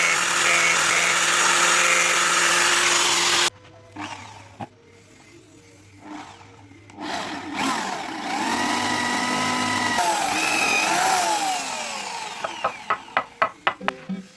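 An electric power tool runs steadily, then cuts off abruptly about three and a half seconds in. Quieter shifting sounds with gliding tones follow, and near the end comes a run of quick sharp taps.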